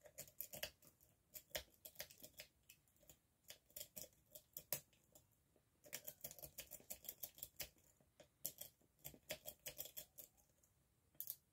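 Lock-picking rake worked rapidly in and out of a Master Lock M50 padlock's keyway, a fast run of small metallic clicks and scrapes from the pins. Two flurries with a short pause between, and a couple of clicks near the end.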